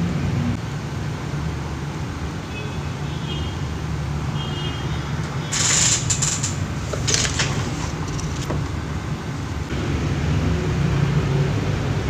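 Steady low mechanical hum, with two short hissy noises about five and a half and seven seconds in.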